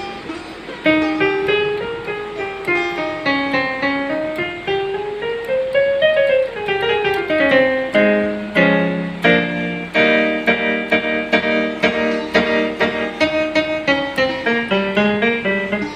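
Electronic keyboard playing in a piano voice: a single-line melody climbing and falling back, then from about halfway, repeated struck chords over a bass line.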